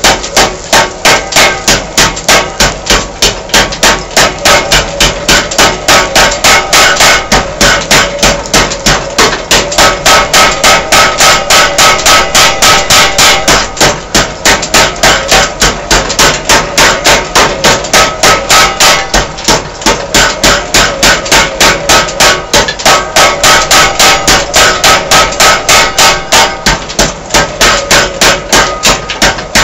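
Homemade junkyard power hammer pounding a red-hot steel bar on its anvil in a fast, steady rhythm of about four blows a second, as the hot bar is forged.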